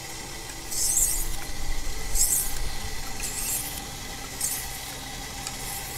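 Steel knife blade drawn across a wet whetstone: four hissing scrape strokes about a second apart, the last one fainter.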